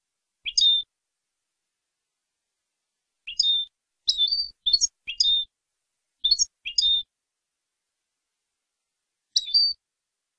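European goldfinch singing: eight short, high twittering phrases with pauses between them, on a clean recording with no background noise.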